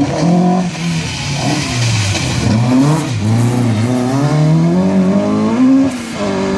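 Rally car engine slowing for a tight left hairpin with short throttle blips on the way down, then revving hard as it accelerates away, pitch climbing steadily until a gear change near the end. Tyre hiss from the wet tarmac runs underneath.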